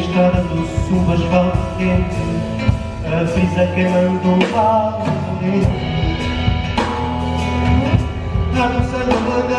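Live band playing a rock-tinged song with acoustic guitar, electric guitars, bass and drums keeping a steady beat.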